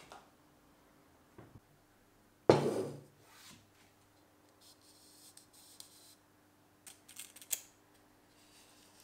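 Workbench handling sounds: one solid knock about two and a half seconds in, then scattered small clicks and rustles.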